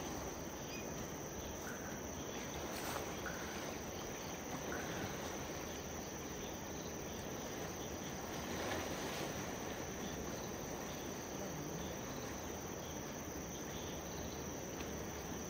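Insects chirring in forest undergrowth: one steady, high-pitched, unbroken tone over a faint even hiss.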